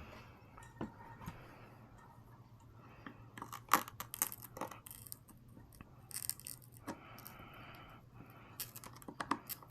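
Scattered small hard clicks and scrapes of a tool prying at the glued lens cover of an Insta360 camera, with a short scratchy stretch partway through.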